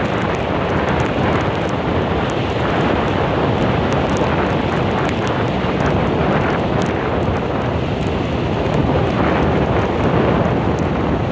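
Strong storm wind buffeting the microphone, with heavy surf breaking on a sandy beach under it. The sound is loud and steady throughout.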